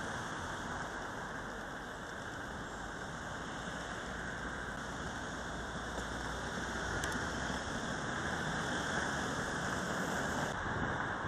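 Steady outdoor ambient noise: an even hiss with a low rumble underneath, with no distinct events, getting slightly louder in the second half.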